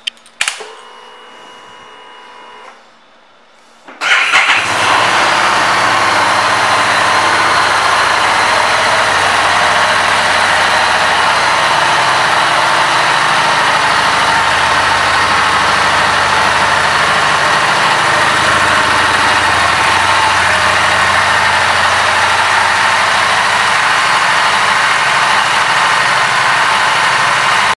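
Harley-Davidson Street Rod 750's liquid-cooled V-twin engine: after a click and a faint whine as the ignition is switched on, the engine starts about four seconds in and then idles steadily.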